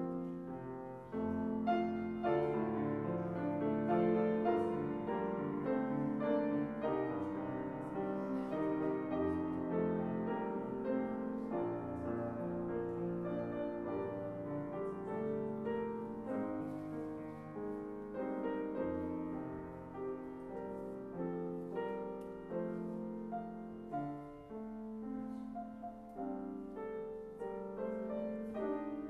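Grand piano played solo: a continuous instrumental piece with many notes.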